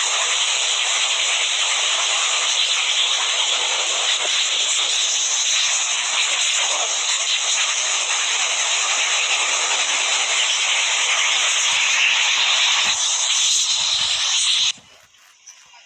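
Loud steady hiss like white noise or static, starting abruptly and cutting off suddenly near the end.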